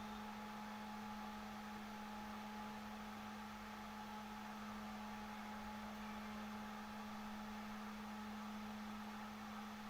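Faint, steady hum, a constant low tone with a thinner, higher whine above it. Nothing starts or stops.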